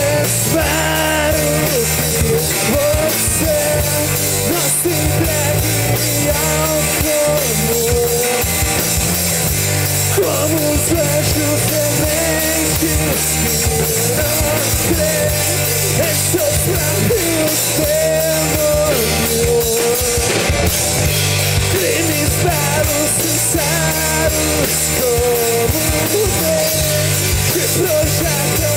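Rock band playing live: electric bass and drum kit with cymbals under a male lead singer's vocals.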